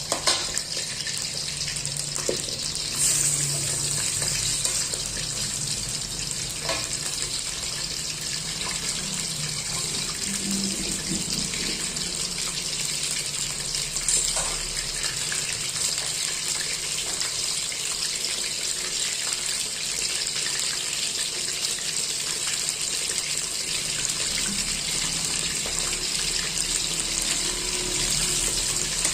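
Chicken pieces sizzling as they fry in a little oil: a steady hiss, with a few light clicks.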